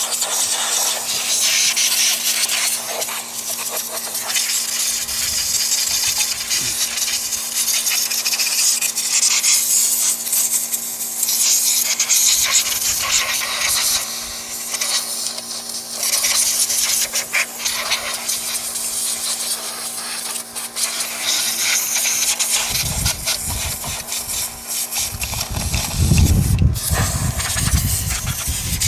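Compressed air hissing from an air nozzle, swelling and easing, as it blows mouse-nest debris out of a small flathead engine's cooling fins. A low rumble joins in during the last few seconds.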